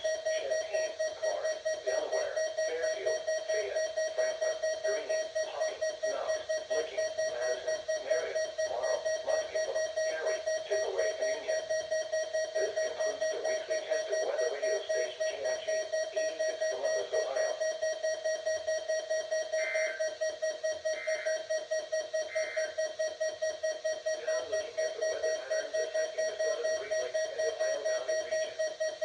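Midland WR-100 weather alert radio sounding its alert alarm: a rapid, even beeping at one steady pitch that goes on without a break.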